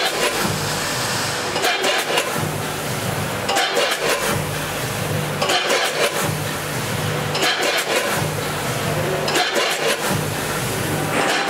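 Multihead combination weigher running on sesame seed, cycling about every two seconds: the vibratory feed pans hum, then a short rattle of hopper gates and pouring seed follows.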